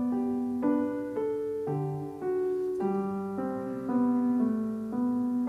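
Slow solo piano music: single sustained notes and pairs of notes, a new one struck about every half second.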